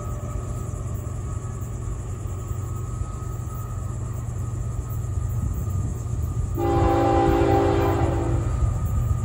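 An approaching Florida East Coast Railway freight locomotive sounds its multi-chime air horn in one long chord of about two seconds, starting some six and a half seconds in, over a steady low rumble. A locomotive horn blown on the approach to a grade crossing is a warning to road traffic.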